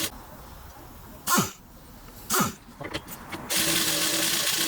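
Power tool working at a stubborn rear suspension bolt: a loud rattling burst of about a second near the end, after two short squeaks falling in pitch.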